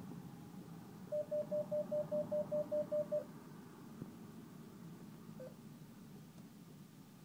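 Cash machine beeping: a quick run of about eleven short, even beeps over two seconds, then a single beep about two seconds later as a selection is made and the machine moves on to reading the card.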